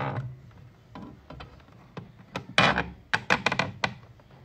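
Handling noise: a quick run of sharp knocks and clicks from hard objects, mostly in the second half, the loudest about two and a half seconds in.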